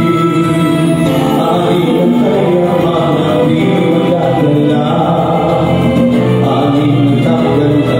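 A man singing into a handheld microphone over backing music, amplified through the bar's PA speakers.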